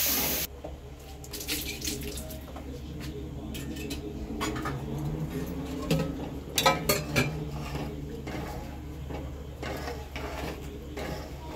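A metal spatula stirring and scraping a thick curry in a steel kadai: wet sloshing with scattered clinks and knocks of the spatula against the pan, the sharpest a little past halfway. A hiss from the hot pan cuts off about half a second in.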